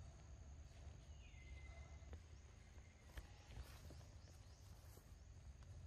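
Near silence: faint outdoor background with a steady low rumble, a few soft clicks and a brief faint whistle about a second and a half in.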